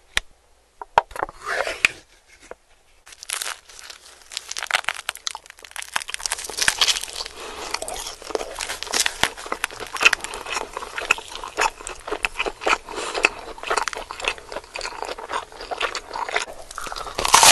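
Close-miked mouth sounds of eating pepperoni pizza: biting into the crust and chewing. There are a few scattered clicks at first, then a dense run of clicks and crackles from about three seconds in.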